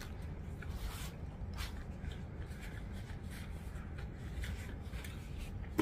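Thin plastic and paper rustling and crinkling as a disposable plastic glove and a paper napkin are handled, in irregular soft strokes.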